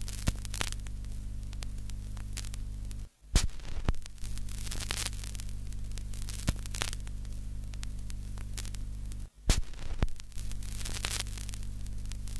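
Steady low electrical hum under static crackle and scattered pops, an old-film soundtrack effect. It cuts out twice, about three seconds in and about nine seconds in, with loud pops as it drops and comes back.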